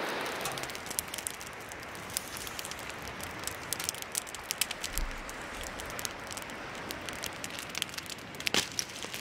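Wood campfire crackling and popping, a run of quick, irregular snaps over a steady rushing hiss.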